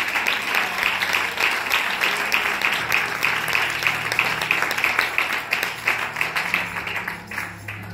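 Audience applauding, a dense run of many claps that thins out and fades near the end. Soft low instrumental music comes in underneath about three seconds in.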